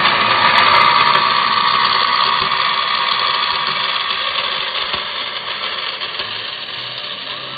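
Vertical bandsaw cutting a small piece of sheet metal: a loud, steady shrill whine over a rasping hiss, slowly fading toward the end.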